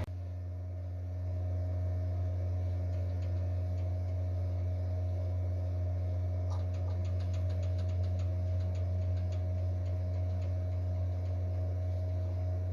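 A steady low machine hum, a little louder from about a second in, with faint quick light ticking through the middle for several seconds.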